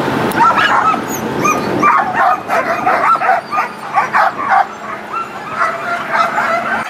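A pack of harnessed Alaskan husky sled dogs barking and yipping, many short high barks and whines overlapping one another. A low rumble sits underneath for the first two seconds, then drops away.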